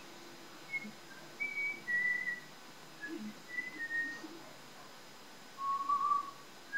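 A woman whistling a song in a string of short, clear notes at changing pitches, the lowest and longest note near the end.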